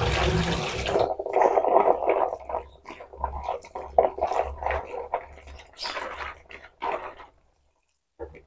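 Water splashing at a kitchen sink as chopped long beans and shallots are rubbed and swished by hand in a bowl under the tap, with sloshing and scraping against the bowl. It stops abruptly near the end.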